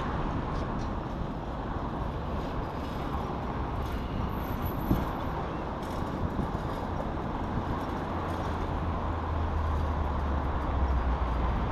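Road traffic noise: a steady hum of passing vehicles, with a low engine rumble swelling near the end.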